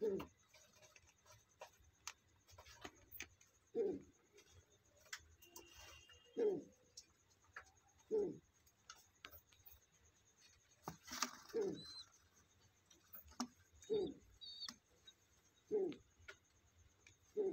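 Pigeons cooing: short, low, falling coos repeated every two to three seconds, with a few faint clicks between them.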